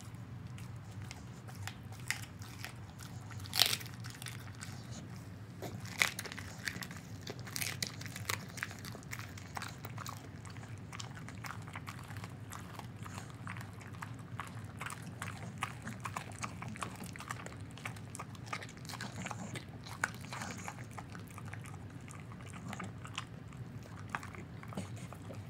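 Pit bull chewing half a raw chicken, crunching through the bones with frequent wet chomps and sharp cracks, the loudest about three and a half seconds in and again about six seconds in.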